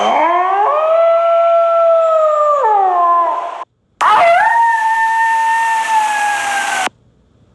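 Wolf howling, two long howls in a row: each rises in pitch and then holds steady. The first falls away after about three and a half seconds. The second starts about four seconds in and cuts off abruptly about three seconds later.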